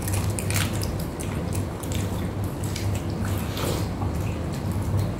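Wet mouth sounds of eating by hand: chewing and lip smacks on fried tilapia and a juicy watermelon bite, with scattered soft clicks over a low, steady hum.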